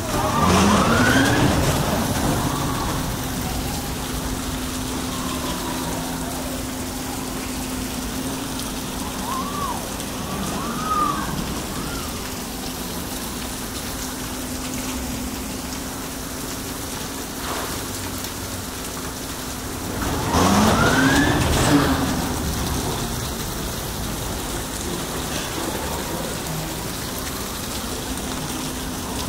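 Wind rushing over the microphone on a ride aboard Bolt, the powered roller coaster, over a steady electric motor hum. The motor's whine rises in pitch as the car speeds up, once right at the start and again about 20 seconds in.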